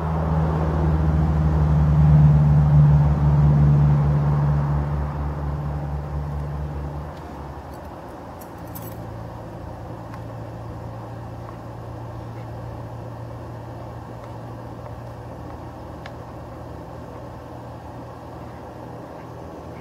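A motor vehicle's engine running steadily with a low, pulsing hum. It is loudest in the first few seconds, then drops to a quieter steady hum about seven seconds in.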